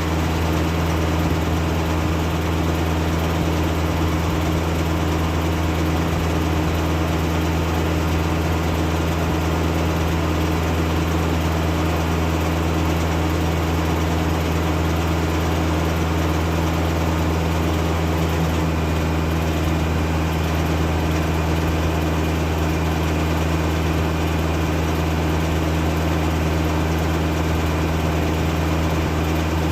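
Steady drone of a 40-horsepower Kubota tractor engine running a Foley-Belsaw circular sawmill, holding one speed with no rise or fall in pitch.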